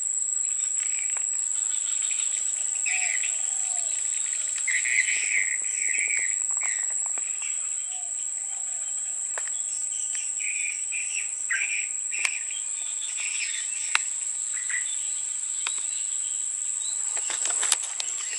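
Steady high-pitched insect trill of forest crickets, with scattered short bird chirps over it. A few sharp clicks stand out, two about two-thirds of the way in and one near the end.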